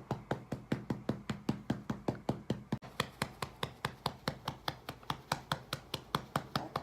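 A hand patting a baby's back in a quick, steady rhythm, about five pats a second, to bring up a burp.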